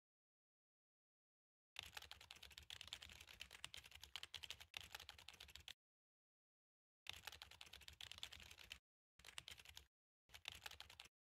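Faint rapid computer-keyboard typing in four bursts, the first about four seconds long and the rest shorter, with dead silence between them.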